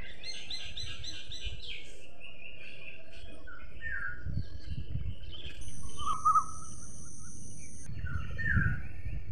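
Songbirds chirping and calling in repeated short slurred notes, with a rapid high trill in the first two seconds. A steady high-pitched whine comes in for about two seconds past the middle, and a constant low rumble runs underneath.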